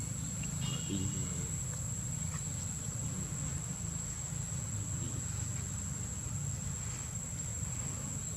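Steady high-pitched insect drone, like crickets, over a continuous low rumble, with a few faint short chirps about a second in.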